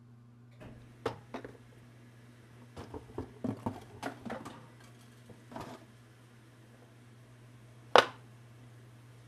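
Knocks and clatter of tools and a desktop hard drive being handled on a plastic cutting board on a workbench, with one loud sharp knock about eight seconds in as the drive is set down. A steady low hum runs underneath.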